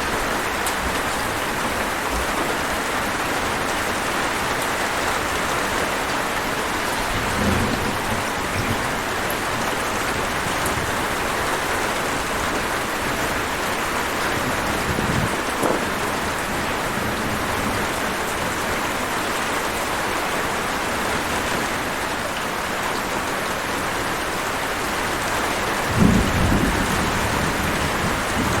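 Heavy rain falling steadily, with low rumbles of thunder about seven seconds in and again around fifteen seconds, and a louder thunder rumble near the end.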